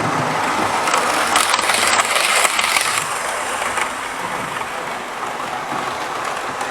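OO gauge model HST train running along its track, its wheels and motor making a steady rattle that gets louder for a couple of seconds about a second in.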